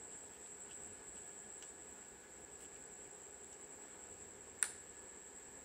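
Quiet handling of a Vimble 2 smartphone gimbal: one sharp plastic click about four and a half seconds in. A faint steady high-pitched whine runs under it.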